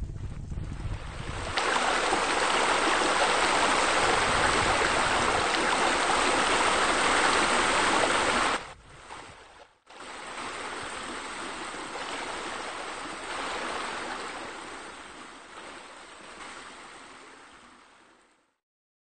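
Running, splashing water like a waterfall, after a low rumble in the first second and a half. It cuts out briefly a little past the middle, returns softer, and fades away near the end.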